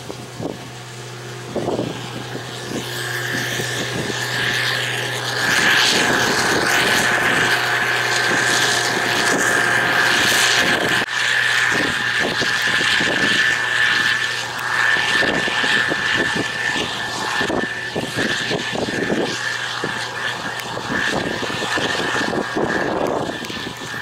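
Case IH 2388 combine harvesting soybeans: its diesel engine and threshing machinery run continuously with a steady high whine over a broad mechanical noise. It grows louder over the first few seconds, then stays loud.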